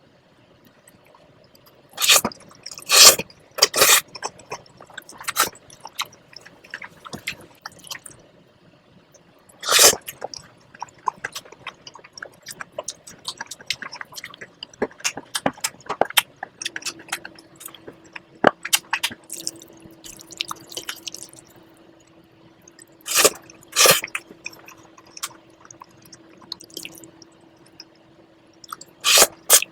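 Close-miked eating sounds: wet chewing and squishing of a creamy pasta meal, broken by a few clusters of short, loud wet bursts.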